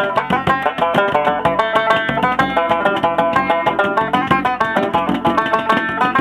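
Banjo played in a quick run of plucked notes, accompanied by a frame drum beaten by hand.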